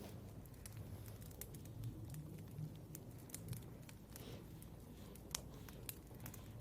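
Faint, irregular small clicks, taps and rustles of someone working at a study desk, over a low steady room hum.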